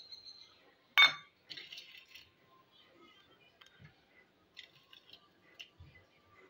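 A single sharp metallic clink against a steel dish about a second in, then faint light clicks and rustles as pieces of chocolate biscuit are laid on the dessert's surface.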